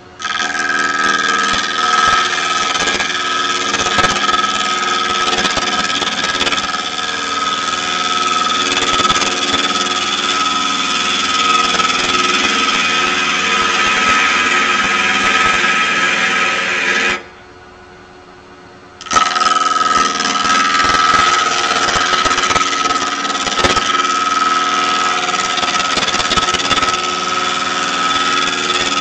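Lathe gouge cutting a spinning wooden bowl blank: a loud steady cutting hiss with a high ringing tone running through it. The cut stops suddenly for about two seconds about two-thirds of the way through, leaving only the lathe's quieter running, then starts again.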